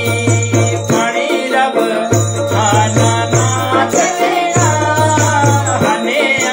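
A man and a woman singing a folk devotional song over a hand drum played in a quick repeating rhythm, with metallic jingling. The deep drum strokes pause briefly twice while the voices carry on.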